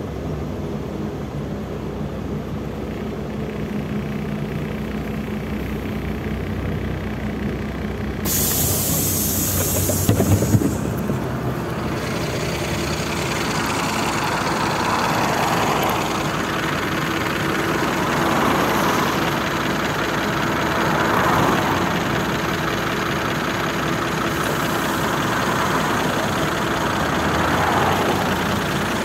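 LiAZ-5293.54 city bus: its engine idling, heard from inside the bus. About eight seconds in comes a two-second hiss of compressed air from the bus, then a few knocks. After that the bus's engine runs with street noise as it pulls away from the stop.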